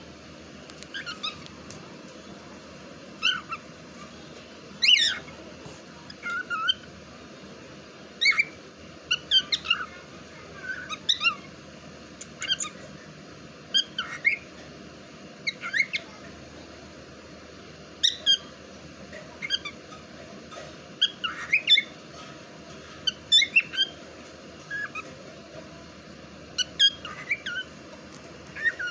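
Cockatiel giving short, squeaky chirps and whistled calls at irregular intervals, every second or two, some sweeping down in pitch, over a steady low background hum.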